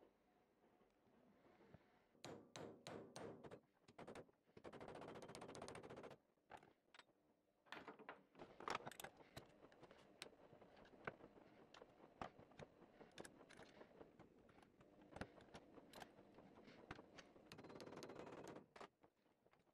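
Pointed metal tool scraping and picking grime off the steel body of an old TRIX can opener clamped in a vise: sharp metallic clicks and taps mixed with scratchy scraping strokes of a second or two, the longest near the end.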